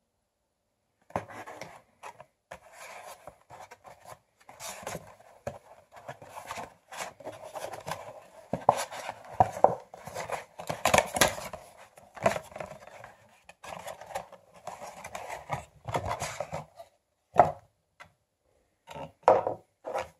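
Cardboard box being opened and handled to take out a plastic KeepCup reusable coffee cup: irregular scraping, rustling and clicking of cardboard and plastic, starting about a second in, with a few sharp knocks near the end.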